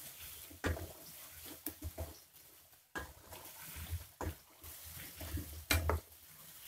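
Chunks of garadu (yam) deep-frying in a kadai of hot oil, the oil sizzling steadily, while a slotted metal spoon stirring them scrapes and knocks against the pan several times, loudest near the end.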